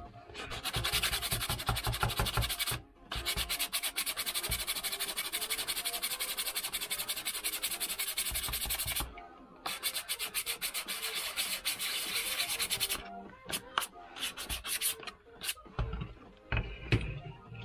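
Hand sanding a small wooden box with folded sandpaper: rapid back-and-forth strokes in three long runs, broken by short pauses about three and nine seconds in, then a few scattered strokes before it stops.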